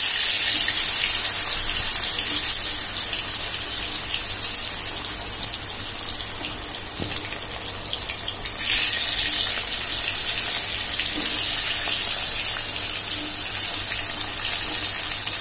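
Elephant foot yam slices frying in hot oil in a stainless steel kadai: a steady sizzle that steps up louder about eight and a half seconds in.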